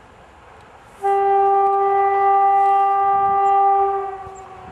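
Horn of an approaching SM48 (TEM2-type) diesel locomotive sounding one long steady single-tone blast of about three seconds, starting about a second in and fading out near the end.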